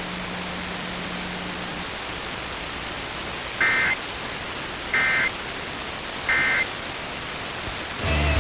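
Emergency Alert System end-of-message data bursts: three short, shrill digital chirps about 1.3 seconds apart over steady radio hiss, closing the required monthly test. A low steady hum stops about two seconds in, and music starts right at the end.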